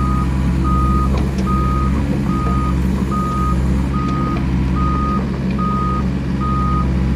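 Travel alarm on a Volvo wheeled excavator beeping at an even pace, a little more than once a second, over its diesel engine running steadily as the machine drives.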